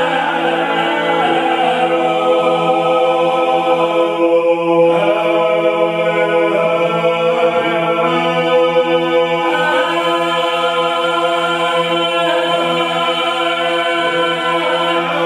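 Georgian choir singing a polyphonic song in several voice parts over a low drone note held throughout.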